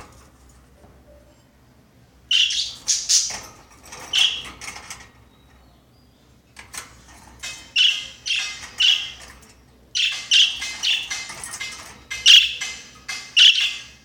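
Budgerigar giving harsh, scratchy chirps in three bursts of rapid calls, each lasting two to three seconds, with short quiet gaps between them.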